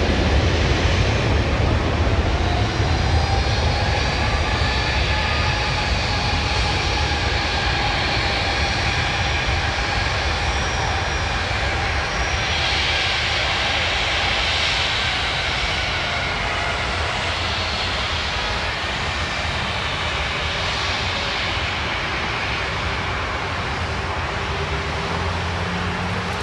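Jet airliner engines whining, a steady layered whine that drifts slowly in pitch, over a continuous low rumble.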